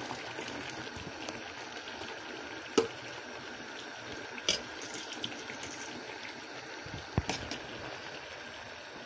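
Steady low hiss from the pot cooking on the stove, with a few light knocks against the metal pot as parboiled rice is layered in over the biryani's meat and potatoes.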